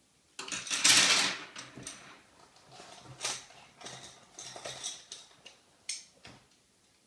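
Handling noise: irregular scraping and rattling in several bursts, the longest and loudest about half a second to two seconds in, then shorter ones.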